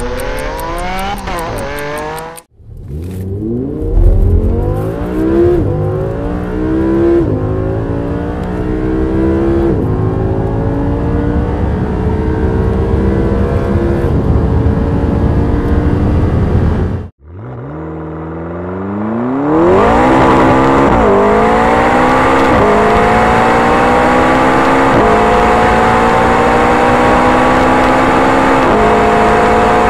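After a short intro sound, an Audi R8 LMX's naturally aspirated 5.2-litre V10 accelerates hard, heard from inside the cabin, its pitch climbing in each gear and dropping sharply at several upshifts. After a cut about halfway through, a McLaren 650S's twin-turbo 3.8-litre V8 pulls from low revs up through the gears, with its own series of upshifts every two to three seconds.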